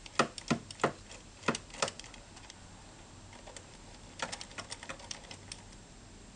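Sharp clicks and taps of small bolts and parts being handled during removal of the pickup coil from a GY6 scooter's stator: a quick run of clicks in the first two seconds, then another cluster of clicks from about four to five and a half seconds in.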